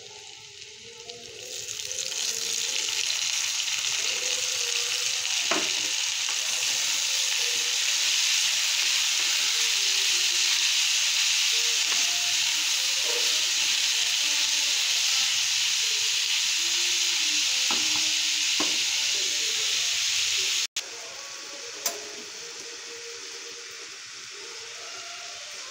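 Potatoes, onions and shredded cabbage frying in hot oil in a pan, a steady loud sizzle with a few knocks of the stirring spoon against the pan. The sizzle swells about two seconds in and drops abruptly to a quieter frying about three quarters of the way through.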